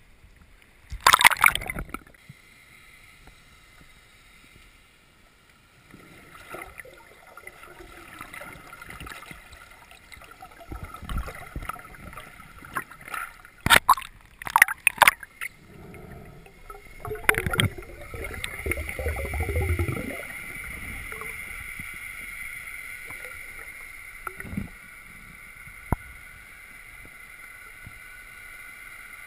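Water sloshing and splashing around a diver's camera at the surface, with several loud splashes about halfway through as the diver goes under. After that the sound turns to a steady muffled underwater hum with a faint even tone and a few small clicks.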